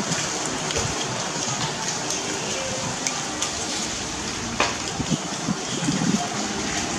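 Oyster shells clicking and knocking as oysters are handled and shucked by hand, a few sharp clicks over a steady watery hiss, the loudest about two-thirds of the way through.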